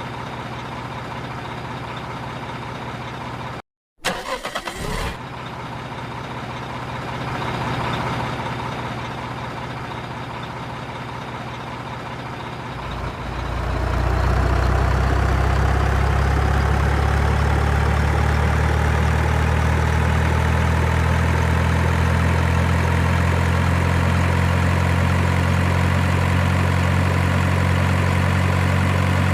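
Truck engine sound idling steadily. About four seconds in there is a brief cut-out and a short clatter. About 13 s in a louder, deeper engine note starts and holds steady.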